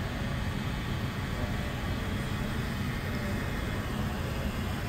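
Steady low hum and hiss of a large exhibition hall's background noise.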